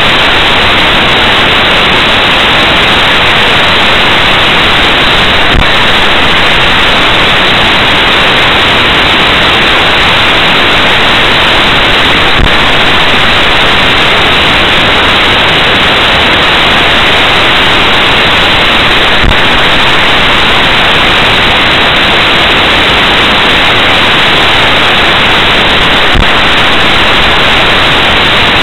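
Loud steady hiss of static from a dashcam's audio recording, with a faint click about every seven seconds.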